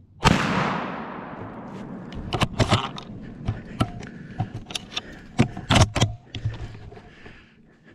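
A single gunshot whose report rolls away through the woods over about a second. A series of sharp knocks and clicks follows.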